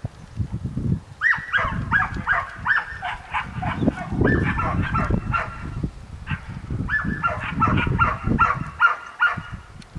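Rapid series of short, honking animal calls, several a second, in two bouts, over a steady low rumble.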